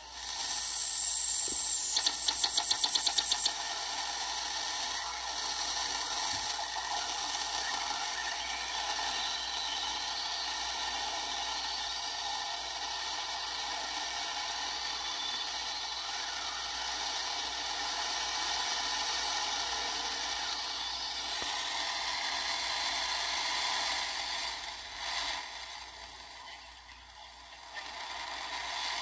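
Homebuilt two-transistor 80-meter regenerative receiver playing band noise through its small speaker: a steady hiss with a thin high whistle that wanders in pitch. There is a short burst of rapid crackling about two seconds in.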